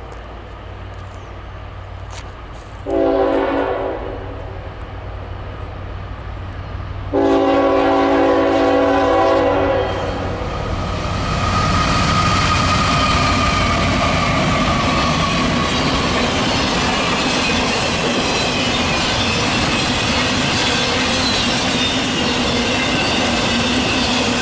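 Locomotive horn sounding a short blast, then a longer blast a few seconds later, as the train approaches. The train then passes close by, loud and steady, its wheels rolling with high squealing tones over it.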